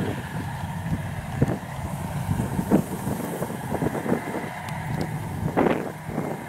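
Yanmar AW82 rice combine harvester, fitted with a Hyundai turbocharger, running under load as it cuts rice: a steady engine drone with irregular short clatters, the loudest near the end.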